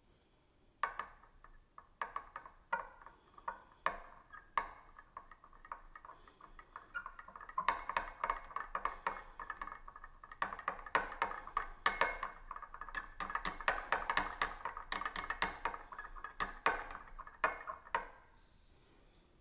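Metal spoon stirring juice in a small glass, clinking against the glass in ringing ticks: scattered at first, then quick and continuous, stopping shortly before the end.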